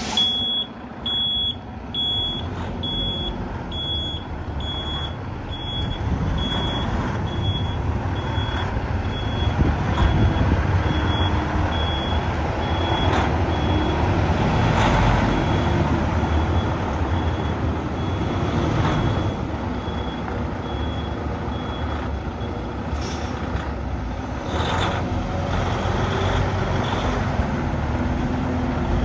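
Freightliner 122SD quad-axle dump truck's diesel engine running as the truck maneuvers, with its reversing alarm beeping about once every three-quarters of a second, growing fainter and stopping about three-quarters of the way through.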